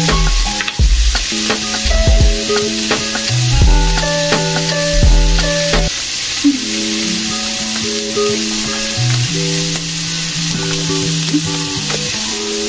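Beef strips sizzling in a frying pan with a steady hiss, under background music with a bass line that moves in held notes.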